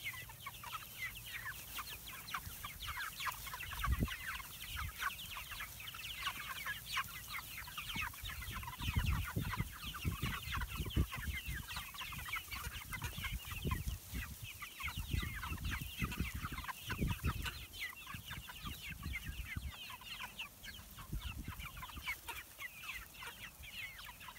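A large flock of hens clucking and chattering, with many short, overlapping calls throughout. Low thuds come and go through the middle.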